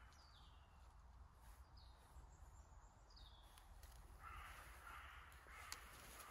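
Faint crows cawing in woodland: three or four harsh caws in the second half. Earlier come a few short, high, falling chirps from a small bird, and there is one sharp click near the end.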